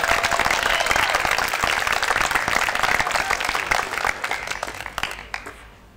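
A small crowd applauding with hand claps, dying away about five seconds in.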